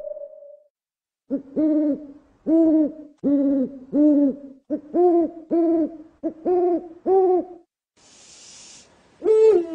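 An owl hooting in a quick series of about ten short, arched hoots, roughly three every two seconds. A short hiss follows about eight seconds in, then one hoot that falls in pitch near the end.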